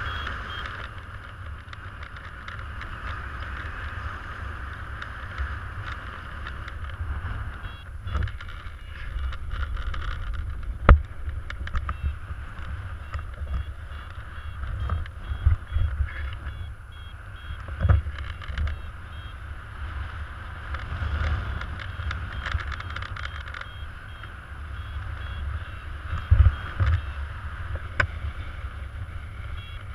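Wind rushing over a paraglider pilot's harness-mounted camera microphone in flight: a steady gusty rumble with a hiss on top, broken by a few sharp knocks.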